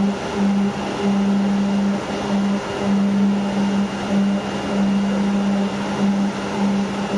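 CNC oscillating knife cutting machine running: a low hum that starts and stops every fraction of a second to a second as the cutting head moves, over a steady mechanical rush with a faint high whine.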